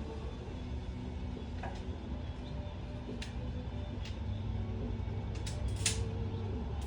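Four-cylinder engine of a 2004 Honda Civic Si running, a steady low rumble, with a few short clicks or taps in the second half.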